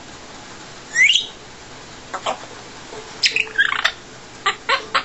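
Congo African grey parrot whistling and clicking: a loud rising whistle about a second in, then a cluster of short whistles and chirps and a quick run of sharp clicks near the end.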